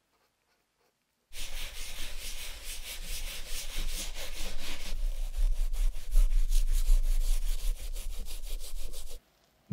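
Bristle brush scrubbing the rubber sole of a Gucci trainer with cleaning foam, in quick back-and-forth strokes. It starts about a second in and stops suddenly near the end.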